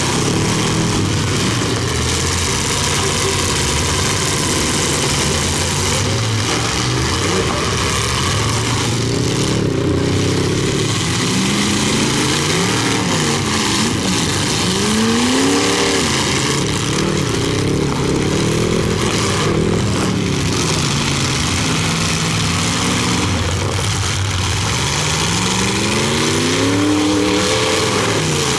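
Several big full-size car engines running hard together, their revs rising and falling again and again as the demolition derby cars accelerate, back up and ram one another.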